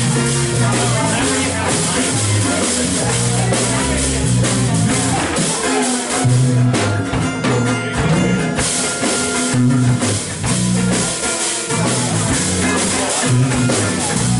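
Live band music: an acoustic guitar strummed over a drum kit, playing a song.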